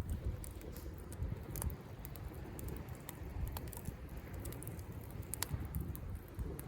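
Wood campfire crackling with irregular sharp pops, one of the louder ones about five seconds in, over a low steady rush of faint surf.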